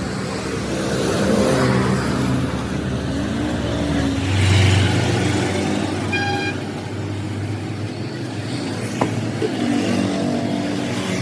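Motor vehicle engines running close by, their pitch rising and falling as they pass, with a short high beep about six seconds in.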